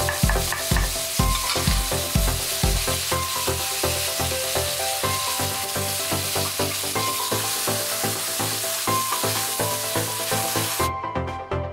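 Oil sizzling in a wok as red chilies and palm sugar fry and are stirred with a metal spatula; the sizzling cuts off suddenly near the end.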